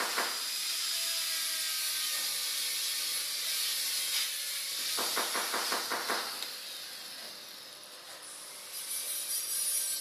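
Handheld angle grinder grinding a small metal part, a steady high hiss of disc on metal. The sound eases off about two-thirds of the way through and picks up again near the end.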